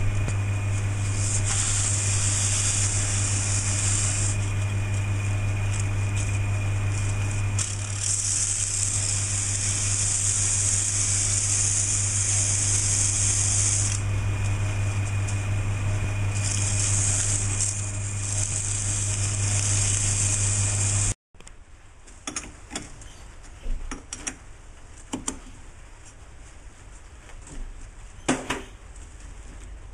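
Early-1950s Hercus metal lathe running with a steady hum while a strip of abrasive cloth is held against the spinning aluminium hub, giving a hiss that comes and goes. About 21 seconds in the lathe sound cuts off suddenly, leaving a quiet background with a few faint clicks and knocks.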